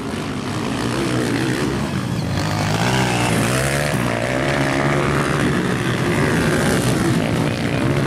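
Motocross bike engines running hard as the bikes race around a dirt track. The nearest bike revs up and down several times a few seconds in.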